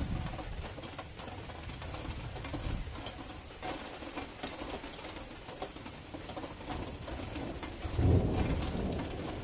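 Thunderstorm at night: steady rain pattering, with a low rumble of thunder swelling about eight seconds in.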